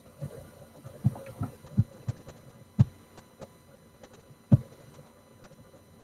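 Irregular soft thumps and taps, about a dozen over a few seconds, with two sharper knocks standing out, over a faint steady hum.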